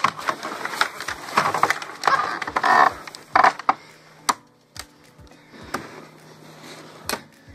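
Sharp knocks, cracks and scraping of a weathered wooden picket fence being worked loose around a juvenile moose's caught legs. The knocks come thick for the first three or four seconds, then thin to a few single ones.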